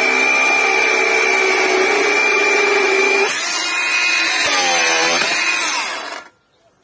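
Cordless angle grinder cutting through a steel strip under heavy pressure, the motor running at a steady high whine. About three seconds in its pitch shifts and wavers as the cut goes through, and the grinder stops about six seconds in.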